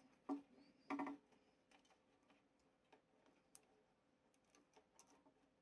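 Near silence with faint clicks and taps of a black plastic model-kit frame being handled: two clearer clicks in the first second or so, then a few scattered faint ticks.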